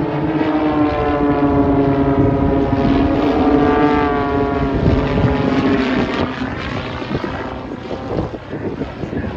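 Piston engines and propellers of aerobatic biplanes droning overhead. The pitch slowly drops, the sound is loudest around the middle, then fades over the last few seconds.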